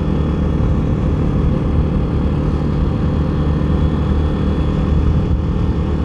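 Access Shade 850 Xtreme quad's engine running at an even pitch while the quad is held at a steady low road speed of under 50 km/h.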